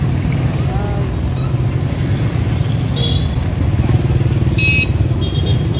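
Motorbike engines running close by, a steady low hum, with a few short high-pitched tones in the second half.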